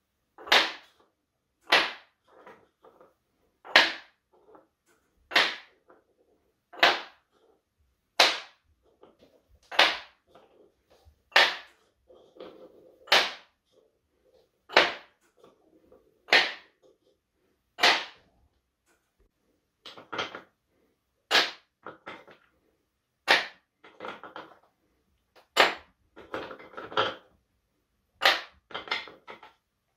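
Wooden balls clacking into small wooden cups one at a time: sharp wooden clacks about every one and a half seconds, each with a brief rattle after it. In the second half the knocks come in quick clusters, with a small wooden mallet tapping a ball into a cup.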